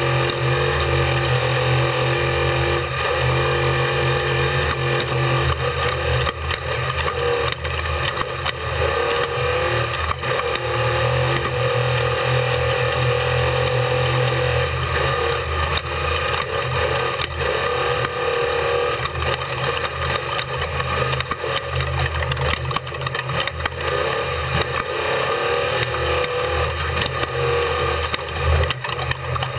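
Unlimited-class desert race truck heard from on board, its engine running hard and steady at speed. Frequent knocks and rattles come from the truck working over rough ground.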